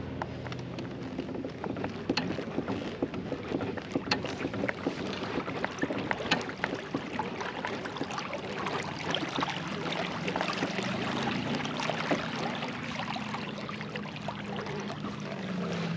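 Water lapping and splashing along the hull of a Hobie Pro Angler 14 pedal-drive fishing kayak moving across a lake, a steady wash broken by many small splashes.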